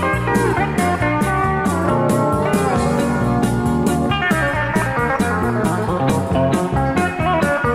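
Instrumental country rock: electric and pedal steel guitar play quick lines full of sliding, bending notes over a bass line and a steady drum beat.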